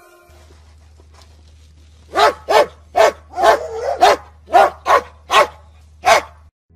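A dog barking, about nine sharp barks in quick succession starting about two seconds in, over a faint steady low hum.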